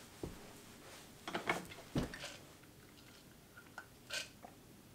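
A few short sips of coffee through a straw, with small scuffs from the cup being handled and a soft thump about two seconds in.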